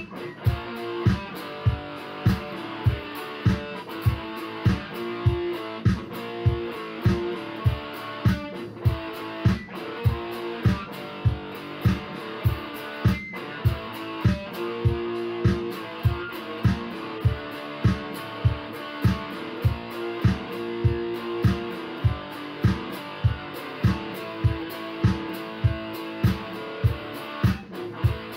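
Background music: guitar over a steady, even beat.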